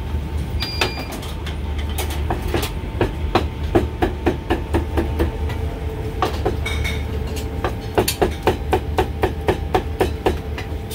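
Cleaver chopping braised beef brisket on a thick wooden chopping block: quick, evenly spaced strokes, about four a second, in two runs, the second near the end. A steady low rumble runs underneath.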